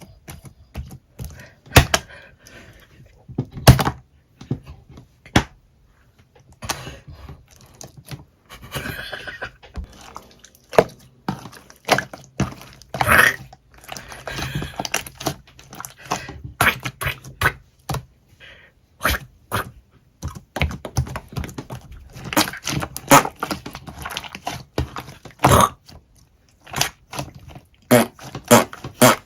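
Slime being squeezed and poked by hand close to the microphone, giving irregular sharp clicks and pops with softer crackling in between.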